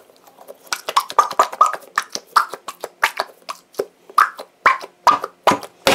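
Rubber squishy stress toy with a gooey filling being squeezed and kneaded by hand. It gives a rapid, irregular run of wet squelches and short squeaks, with a bubbly, oozy sound.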